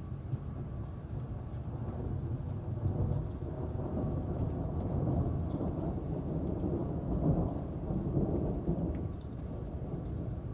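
Rolling thunder over rain: a long low rumble that swells, peaks twice and eases toward the end.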